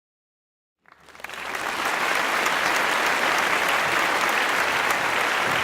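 A group applauding, many hands clapping together. It comes in after a second of silence, swells quickly and then holds steady.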